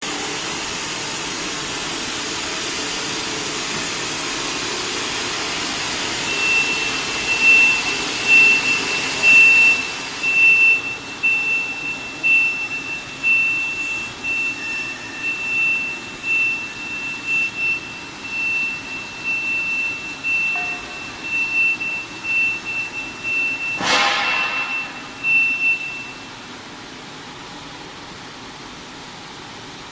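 High-frequency PVC soft-crease box welding machine running: a steady hiss, then, about six seconds in, a high steady tone that swells and dips irregularly for some twenty seconds. One sharp clack comes near the end.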